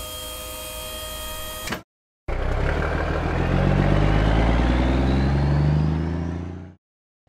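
Cartoon dump truck sound effects: a steady mechanical hum as the tipper bed lowers, stopping about two seconds in, then after a short gap a truck engine revving up with rising pitch as it pulls away, fading out near the end.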